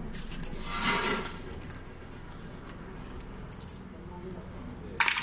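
Kitchen clatter of metal utensils and dishes clinking as the cook prepares udon at the stove, with scattered light clicks and one loud metallic clank that rings briefly near the end.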